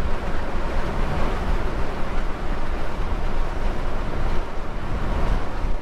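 Holden HK's engine and road noise heard from inside the cabin while driving, a steady even drone with no pinging to be heard.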